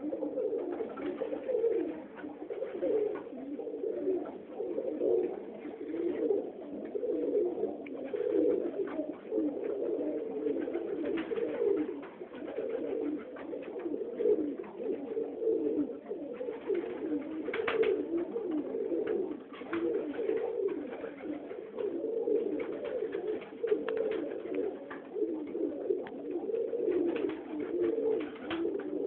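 A loft full of Budapest highflyer pigeons cooing continuously, many coos overlapping, with occasional short clicks.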